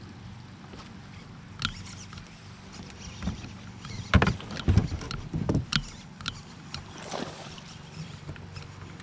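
Knocks and thumps on a fishing boat, clustered in the middle, the loudest two about four and a half seconds in, with scattered lighter clicks, over a steady low hum.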